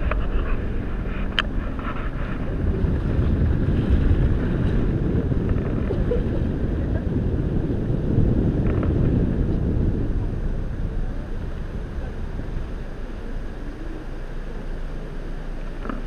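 Low, steady rumble of a car driving slowly, with wind buffeting the microphone; it eases off a little in the last few seconds.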